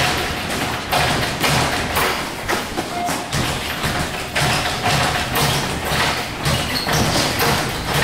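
Boxing sparring: irregular thuds of gloved punches landing on gloves, arms and headgear, mixed with footwork on the ring canvas, roughly two impacts a second.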